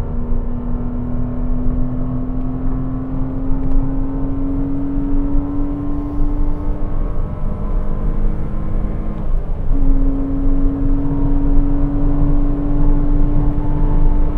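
Porsche Cayman 987's 2.7-litre flat-six engine pulling hard under full throttle, its pitch climbing slowly through the revs, then one gearshift about nine to ten seconds in before it pulls and climbs again. The engine runs clean, its long-standing misfire fixed.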